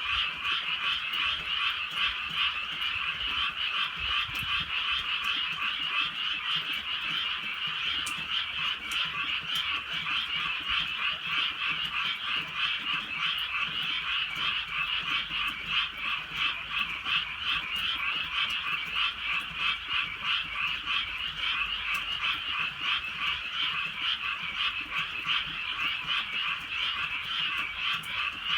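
A dense chorus of many frogs croaking without a break, a steady fast trilling mass of calls.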